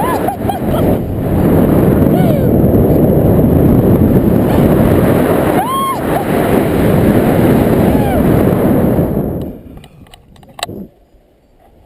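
Heavy wind rushing over the microphone in flight, with a person's short whooping cries over it, the clearest about six seconds in. The rush dies away suddenly about ten seconds in.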